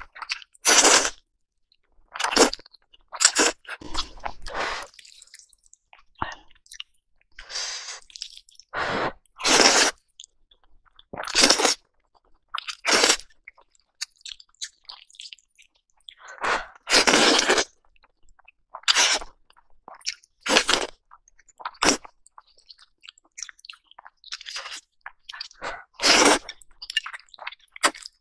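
Close-miked slurping and chewing of sauce-coated noodles: a string of separate loud slurps, each about half a second to a second long, with short quiet gaps between.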